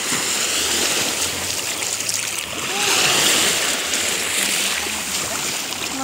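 Small sea waves breaking and washing up over a sandy shore at the water's edge, a steady rush of surf.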